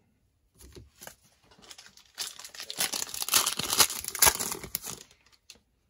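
Plastic cello wrapper of a pack of football trading cards crinkling and tearing as it is ripped open: a few faint crackles, then dense, louder crinkling from about two seconds in that stops about a second before the end.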